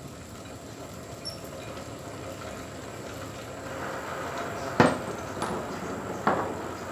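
Bicycle drivetrain turned by hand: chain running over the chainring and rear sprockets as the cranks spin on a newly fitted sealed cartridge bottom bracket, a steady whirring that grows louder. Two sharp knocks come near the end, the first one the loudest.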